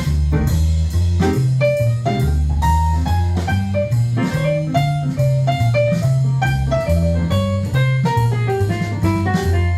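Instrumental jazz-style music with a drum kit and a bass line that steps from note to note a few times a second, under short melodic notes.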